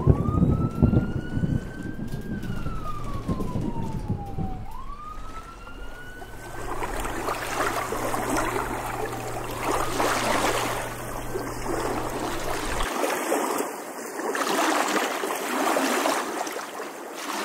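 Intro sound effects: a low rumble with a whistling tone that glides up, slowly down, and up again over the first five seconds, then a dense hiss with a low hum underneath that stops about thirteen seconds in.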